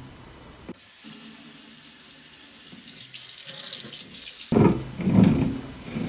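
Moen Benton kitchen faucet spout being swiveled, its loose spout connection grinding in two loud bursts near the end; the grinding comes from a loose nut inside the faucet. Before that, a steady high hiss for about four seconds.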